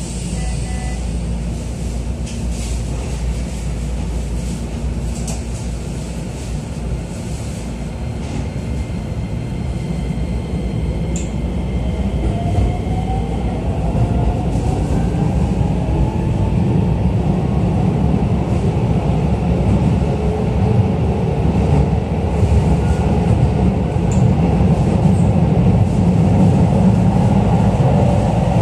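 Keisei 3000-series electric commuter train heard from inside a car as it pulls away from a station and accelerates: after about ten seconds the traction motors' whine rises steadily in pitch, over a rumble of wheels on rail that slowly grows louder.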